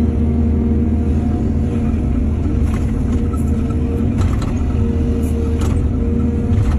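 Excavator's diesel engine running steadily, with a few short knocks or clanks between about three and six seconds in.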